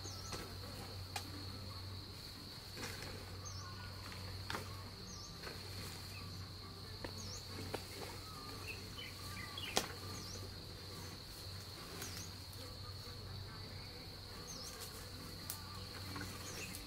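A steady high-pitched insect drone, with scattered light clicks and snaps, one sharper about ten seconds in.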